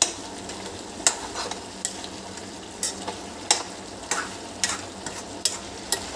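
A metal spatula scrapes and knocks against a metal kadai as chicken curry is stirred, about ten strokes. Under it runs a steady sizzle of chicken cooking in the water it has released, which is being boiled off on high flame.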